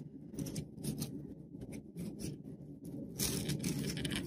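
Crinkling and rustling of a glue-dampened paper towel strip being wrapped and scrunched around a flower stem, with a louder stretch of scrunching about three seconds in.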